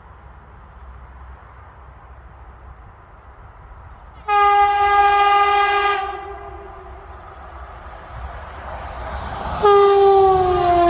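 Kockums Tyfon air horn on an electric multiple-unit train: one steady blast of about two seconds, then the rumble of the train drawing nearer. Near the end comes a second blast, louder, whose pitch falls as the train goes by.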